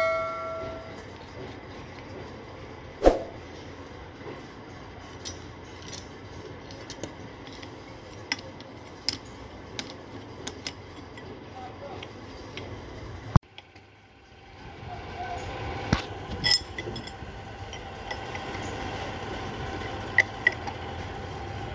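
Light metallic clinks and taps of steel hand tools against a gear puller being fitted and tightened onto a gearbox shaft, with one sharper knock about three seconds in. After a sudden break about two-thirds through, a steady mechanical hum with faint tones runs under further clinks.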